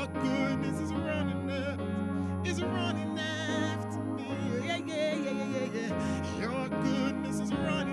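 Worship music: sustained, held chords with a wavering vibrato melody line over them, likely a singer's voice.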